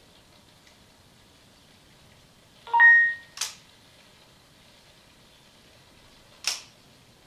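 Sony Aibo ERS-210 robot dog giving a short electronic beep of a few steady tones about three seconds in. A brief hissing burst follows half a second later, and another comes near the end.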